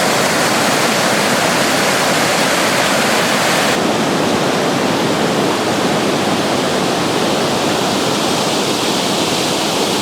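High Shoals Falls, a waterfall, rushing steadily: a loud, even wash of falling water. About four seconds in, the highest hiss drops away abruptly.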